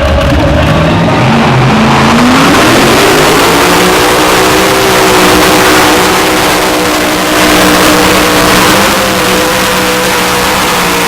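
Competition pulling tractor's engine running at full power: the revs climb about two seconds in, then hold high and steady under load.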